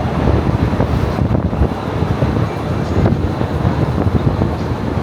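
Wind buffeting the microphone: a loud, steady low rumble with irregular flutter, over city traffic noise.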